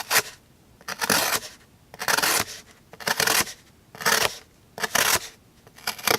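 Small folding knife blade slicing through jute, in short scratchy cutting strokes repeated about once a second.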